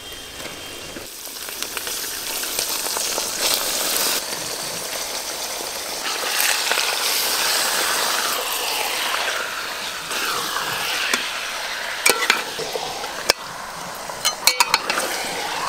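Washed raw mutton pieces sizzling as they go into hot mustard oil and fried onions in a metal pot. The sizzle starts about a second in and holds steady while a metal spatula stirs the meat, with a few sharp clicks of the spatula against the pot near the end.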